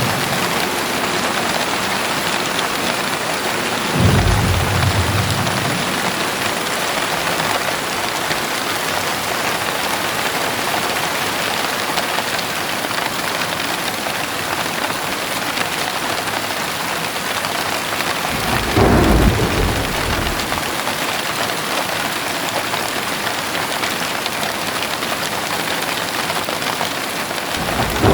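Steady heavy rain from a thunderstorm, with thunder rumbling low about 4 seconds in, again in the middle, and once more at the very end.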